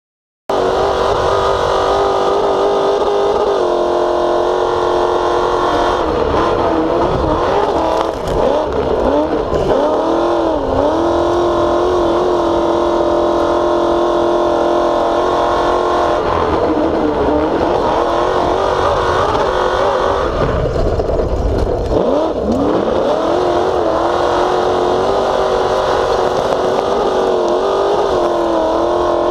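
TORC Pro Light off-road race truck's engine at racing revs, heard from inside the cab. The pitch holds high, dips and climbs back a few times about a third of the way in, and drops again for a couple of seconds about two-thirds through.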